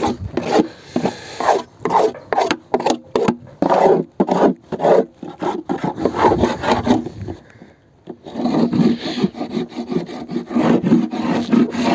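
Hive scraper rasping against the inside wood of an empty beehive body in quick repeated strokes, with a brief pause partway through. This is the mechanical scraping-clean of the hive before it is disinfected.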